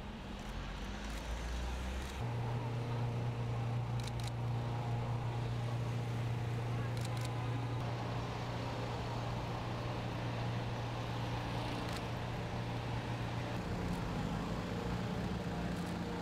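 Road traffic noise with a steady low engine hum. The hum comes in about two seconds in and shifts higher near the end.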